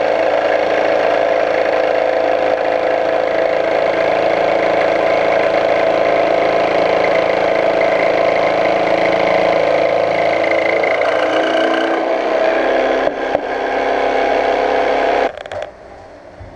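Jigsaw mounted upside down under a bench, running steadily with its blade cutting a block of wood fed into it. The motor cuts off suddenly about fifteen seconds in.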